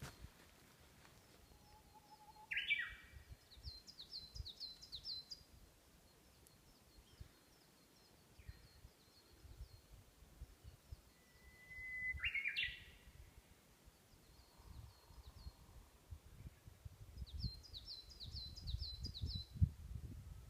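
Wild songbirds singing. One bird twice gives a held whistle that breaks into a quick tumbling phrase, about two seconds in and again near the middle. Another bird gives fast runs of high, sharp notes, and a low rumble on the microphone builds near the end.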